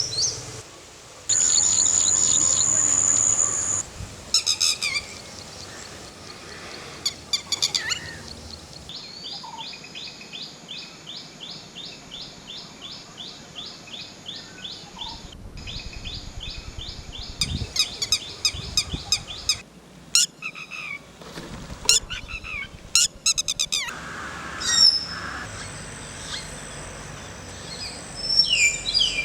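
Several different birds calling and singing in short segments that change abruptly every few seconds, including one long run of rapid repeated chirps.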